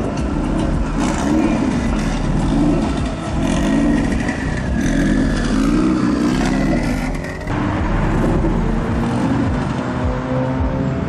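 Modified car engines revving as cars pull away, the pitch swelling up and down about once a second. After a sudden change about two-thirds of the way through, an engine's pitch climbs steadily as a car accelerates.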